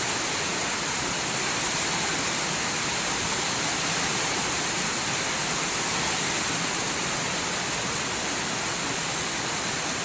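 Rain falling steadily: a dense, even hiss that holds at the same level throughout.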